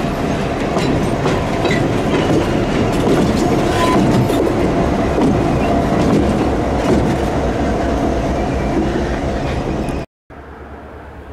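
Colebrookdale Railroad passenger train running, its wheels clattering and clicking over the rail joints. About ten seconds in the sound cuts off abruptly, and a much quieter steady rumble follows.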